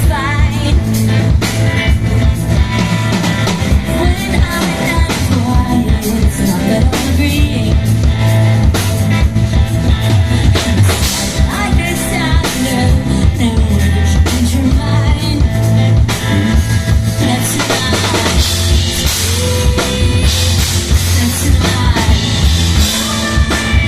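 Live rock band playing, with drum kit and guitar over a heavy low end, and a woman singing.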